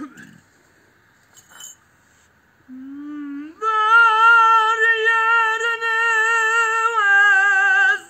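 A man singing unaccompanied, one long full-voiced note. It enters low about three seconds in, leaps up and holds high with a strong vibrato for a few seconds, then steps slightly lower and breaks off near the end.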